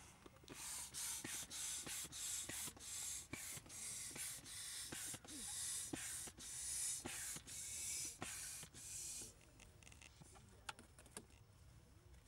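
Air pump inflating an Intex Challenger K2 inflatable kayak, each stroke sending a short hiss of air through the hose, about two to three strokes a second. The pumping stops about nine seconds in, followed by a few faint clicks.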